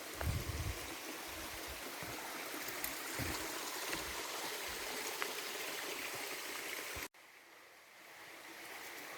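Rushing water of a mountain stream or waterfall, a steady hiss with a few low bumps on the microphone in the first second. About seven seconds in it cuts abruptly to a quieter stretch of running water.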